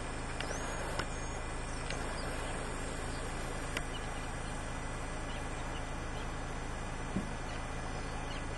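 Steady outdoor background noise with a short high chirp shortly after the start, like a small bird's call, and a few faint clicks spread through it.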